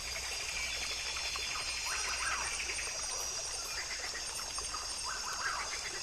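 Tropical forest ambience: a steady high-pitched drone of insects, with short chirping animal calls scattered through it.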